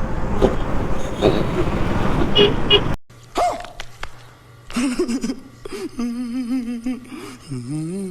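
Loud wind and road noise from riding a motorcycle, with two short horn beeps about two and a half seconds in. The sound then cuts off abruptly to quieter traffic, where long wavering horn-like tones sound.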